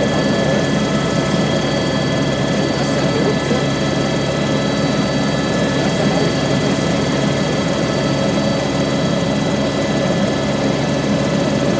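Inside the cabin of an Airbus H125 (AS350 B3e) helicopter in flight: the steady, loud drone of the rotor and its single turboshaft engine, with several constant high whining tones over it.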